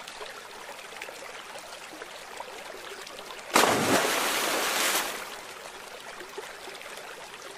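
Shallow lake water trickling and lapping at the shore, with a louder burst of rushing noise about halfway through that lasts about a second and a half.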